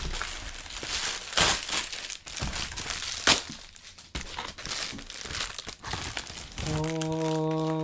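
Packaging crinkling and tearing as a delivered package is opened by hand, with one sharp crack about three seconds in. Near the end a steady low pitched tone starts and holds.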